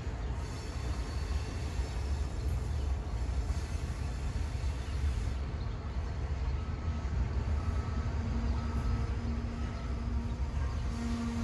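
Slow-moving freight train making a low steady rumble as its boxcars roll along the track toward the listener. A faint steady tone comes and goes from about two-thirds of the way through.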